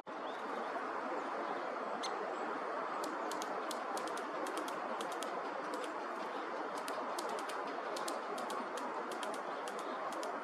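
Lesser spotted woodpecker pecking at dry wormwood stalks: light, sharp, irregular taps, several a second, starting about three seconds in, over a steady outdoor hiss.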